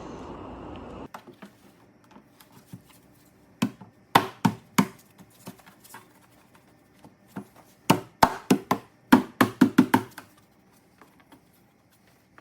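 A steady hum that stops abruptly about a second in, then sharp clicks and knocks of parts being handled and fitted on the car. The knocks come in two bursts, a few around four seconds in and a quicker run near the end.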